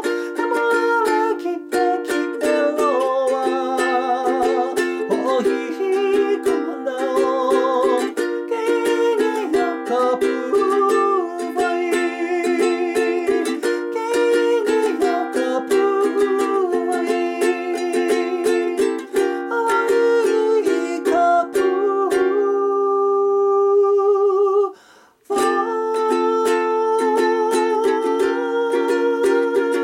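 Solo ukulele playing a Hawaiian tune, a picked melody over chords. Near the end a chord is left ringing, the sound breaks off for a moment, and the playing starts again.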